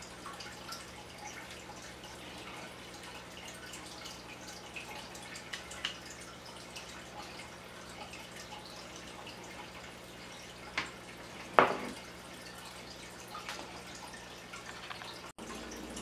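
Small clicks and taps of SATA cable plugs and a hard drive being handled inside a metal NVR case, with one sharper, louder click about three-quarters of the way through, over a faint steady hum.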